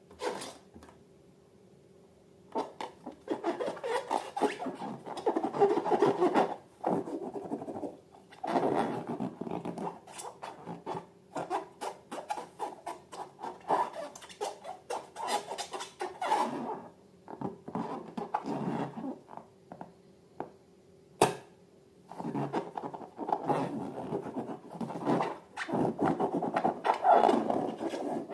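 Slime being worked by hand: sticky crackling and squelching in bouts of a few seconds with short pauses between, and one sharp click about two thirds of the way through.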